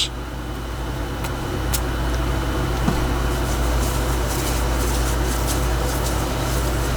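Steady low mechanical hum, like a motor or fan running, with a couple of faint clicks.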